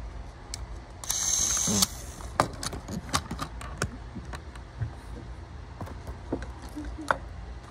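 Plastic clicks and knocks of a battery toy train engine being handled, with a short scraping rustle about a second in.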